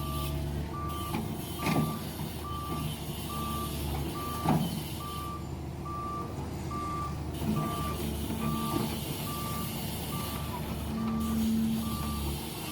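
Heavy-equipment reversing alarm beeping at one steady pitch, a little more than once a second, over a diesel engine running, with a couple of sharp knocks.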